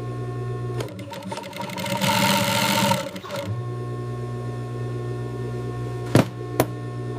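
Sewing machine stitching leather: a steady motor hum that gets louder and rougher for about a second partway through. A few sharp clicks come near the end.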